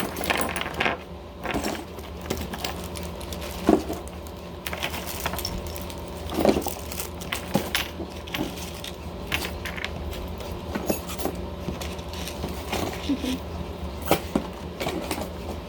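Small trinkets and jewellery clinking and knocking as they are handled and packed back into a box: irregular clicks and taps over a steady low hum.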